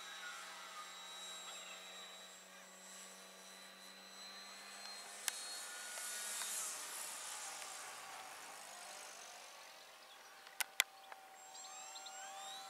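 Radio-controlled model aeroplane's motor and propeller whining steadily as it flies, the pitch dropping as it passes. A few sharp clicks, two of them close together near the end, are the loudest sounds.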